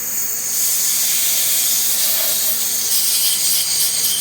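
Compressed air hissing steadily from an air blow nozzle, blowing out a carburetor's passages to clear them of gunk. It starts suddenly and keeps up at an even, loud, high-pitched hiss.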